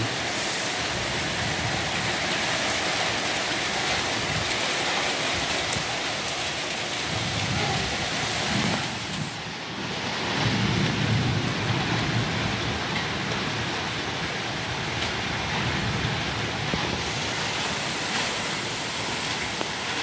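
Strong gusty wind thrashing coconut palm fronds: a steady rushing hiss, with gusts buffeting the microphone in low rumbles about seven and eleven seconds in and a brief lull just before the second.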